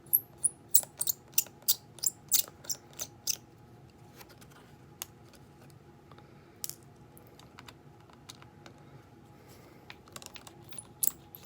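Light, sharp clicks of a small precision screwdriver and tiny screws being worked on a cheap smartphone's plastic housing during a teardown. The clicks come several a second at first, only a few through the middle, then pick up again near the end.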